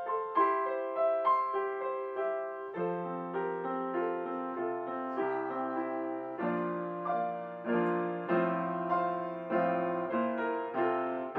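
Piano music: single notes and chords struck one after another, each fading away.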